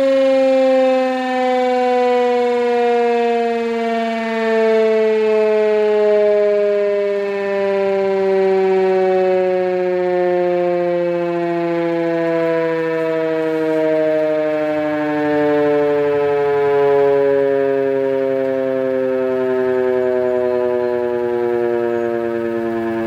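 Gryphon 2048 electric siren sounding a loud, multi-toned howl whose pitch falls slowly and steadily, part of a long attack-signal run.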